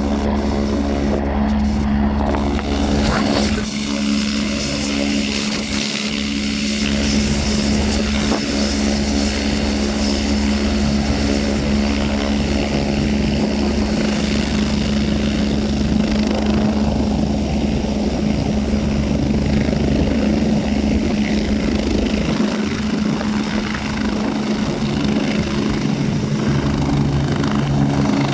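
Air ambulance helicopter running on the ground with its main rotor turning and engines whining at a steady pitch. Near the end the sound shifts as it lifts off into a hover.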